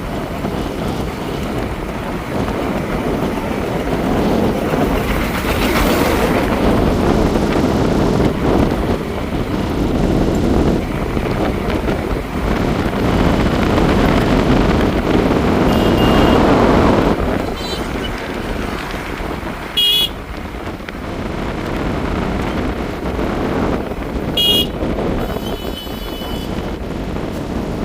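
Steady road and wind noise while riding along a road on a motorbike. Several short, high horn beeps sound in the second half.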